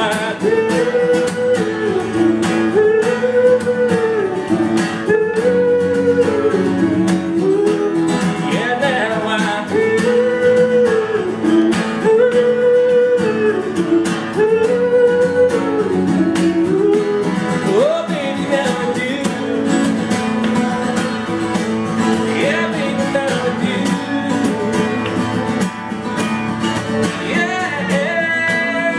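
Live unplugged country performance: two acoustic guitars strummed and picked under a male singing voice, the melody rising and falling in repeated phrases every couple of seconds.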